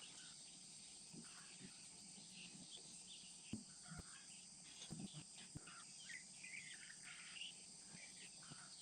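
Near silence: a faint steady drone of insects, with scattered faint bird chirps and a few soft knocks.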